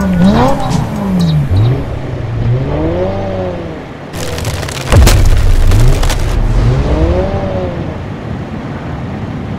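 Cartoon monster truck engine sound effect revving in repeated rising and falling swells, with a loud rush of noise and a sharp thump about five seconds in.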